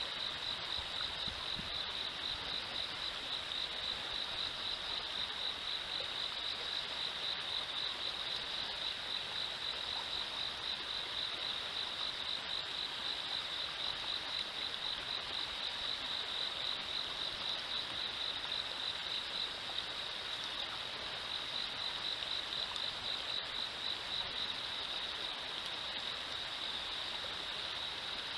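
River water running over rocks in a steady rush, with insects keeping up a continuous high, rapidly pulsing trill.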